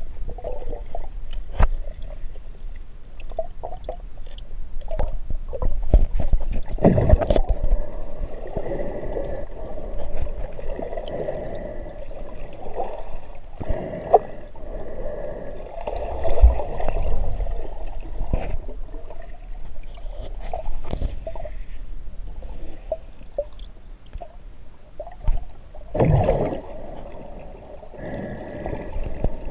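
Muffled underwater sound picked up by a GoPro in its waterproof housing: water gurgling and swirling around the case, with scattered knocks and clicks from the case being moved. The water noise swells strongly about a quarter of the way in and again near the end.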